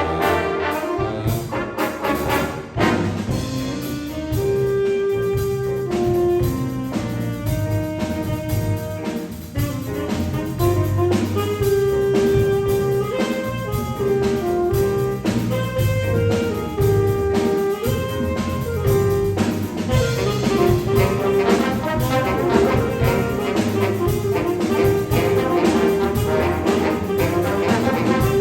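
Student jazz band performing live: a horn section of trumpets, trombones and saxophones playing held notes and melodic lines over walking low notes and drums keeping a steady beat.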